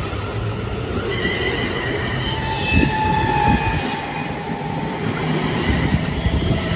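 East Midlands Railway Class 360 Desiro electric multiple unit pulling away from the platform: its traction equipment whines in several steady tones over the low rumble of the wheels, a really distinctive sound.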